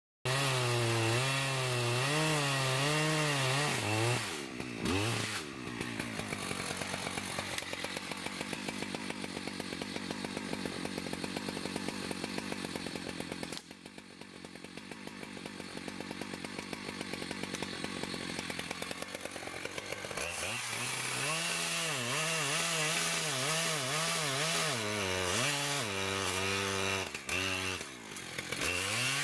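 Two-stroke chainsaw running at high revs, its pitch dropping and climbing again about five seconds in. Through the middle it runs at a lower, steadier pitch, as when the chain is working through wood, then revs high again with the throttle eased and opened several times near the end.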